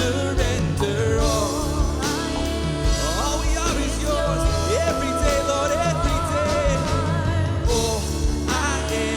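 Live worship band playing with piano, bass, drums and synth, a strong steady bass underneath. A voice sings wavering, wordless runs over it.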